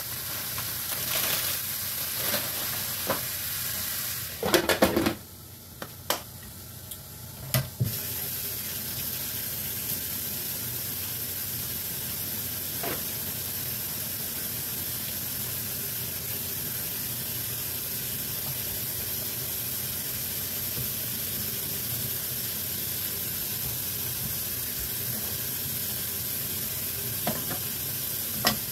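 Shaved beef, mushroom and spinach stir-fry sizzling steadily in a frying pan, covered for most of the time by a glass lid. In the first few seconds there are rustles and a few clanks as the spinach goes in and the lid is set on.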